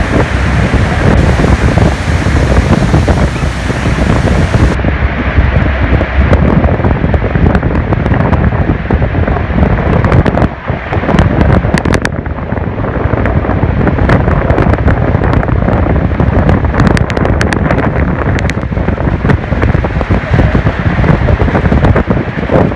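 Loud, steady roar of Niagara Falls heard up close, with heavy wind buffeting and crackling on the microphone. The sound shifts abruptly about five seconds in and again about twelve seconds in.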